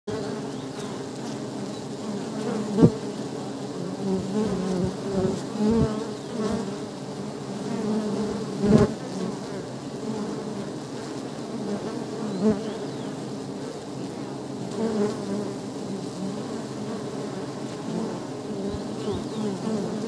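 Buzzing of many honeybees flying around, individual buzzes swelling and fading as bees pass, with two sharp knocks about three and nine seconds in.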